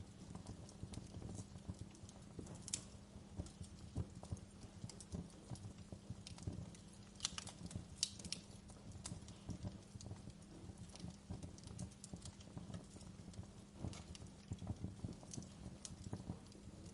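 Wood fire crackling in a fireplace: a low steady rumble of burning with irregular snaps and pops, a few of them sharper and louder.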